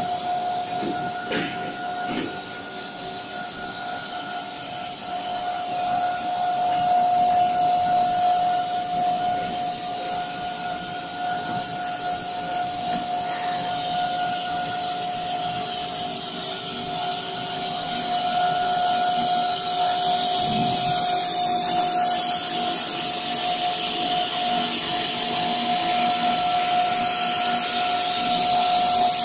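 Corrugated plastic pipe extrusion line running: a steady machine drone with a constant whine, joined by a hiss of spraying cooling water that grows louder near the end.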